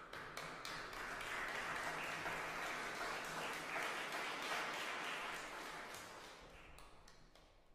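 A small audience applauding, a dense patter of clapping that dies away over the last couple of seconds.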